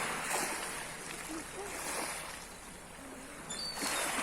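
Sea waves washing in and drawing back on the shore, swelling and fading every second or two, with a few faint high chirps near the end.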